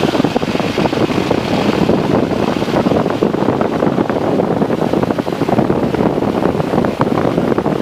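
Light aircraft taxiing: steady rushing wind and propeller-wash noise buffeting the microphone, with a dense crackle all through.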